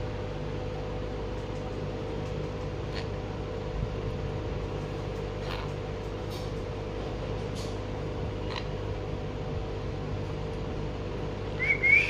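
Monk parakeet mostly quiet over a steady room hum, giving a few faint short chirps, then a short bright whistled chirp near the end.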